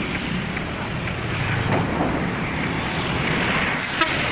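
Steady rumble of heavy diesel machinery running, mixed with wind noise on the microphone, with a single sharp click about four seconds in.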